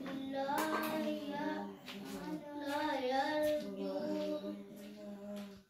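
Background song: a high voice singing a slow, held melody that bends in pitch, breaking off abruptly at the end.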